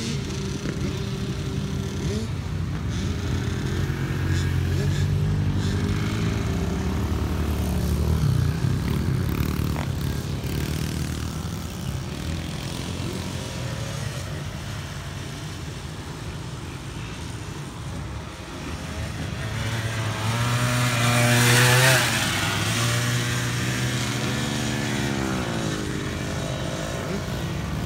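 Engines of small youth dirt bikes and a Suzuki LT80 ATV revving up and down as they ride around a dirt track. A little over twenty seconds in, one comes close and is loudest, its pitch climbing and then dropping as it goes by.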